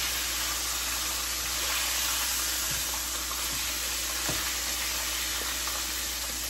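Pork chops frying in hot oil in a skillet: a steady sizzle, with a few light clicks of a utensil against the pan about three to four seconds in.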